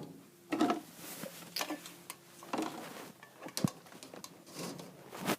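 Irregular light knocks, taps and rustles from things being handled, with one sharper knock about three and a half seconds in.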